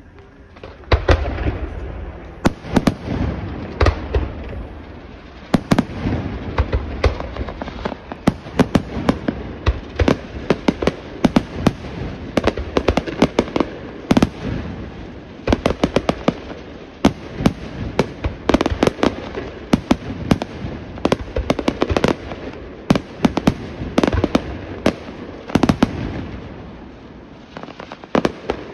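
Aerial fireworks display by Pirotecnica Senatore: a dense barrage of overlapping bangs from bursting shells, several each second. It starts about a second in and runs on without a break.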